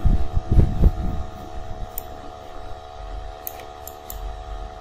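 Dull low thumps in the first second, then a few sharp computer mouse clicks as a block of text is selected, over a steady hum.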